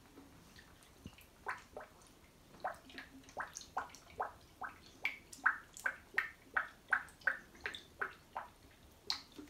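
Gurgling from a freshly filled PC water-cooling loop: a run of short bubbling blips, sparse at first and then coming about three a second. It is the sign of air still trapped in the loop being pushed through by the pump.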